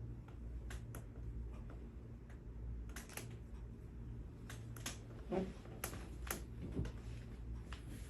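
Scattered light clicks and taps from hands-on chiropractic work on a client's body, irregular and sharpest about three seconds in and again a little before the end, over a steady low hum.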